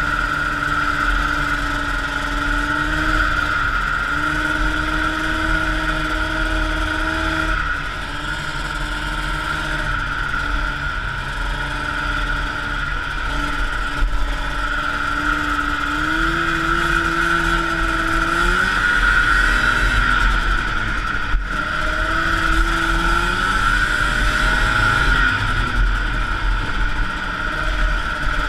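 1979 Arctic Cat El Tigre 6000 snowmobile's liquid-cooled 440cc two-stroke engine running under way, its pitch rising and falling with the throttle and climbing twice in the second half, over a steady high drone.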